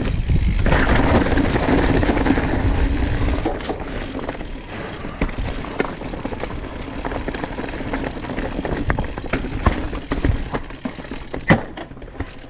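Mountain bike riding over rocks: a heavy rumble of tyres and wind on the mic for the first few seconds, then lighter rolling noise with the chain and frame rattling and many sharp knocks, one hard knock near the end.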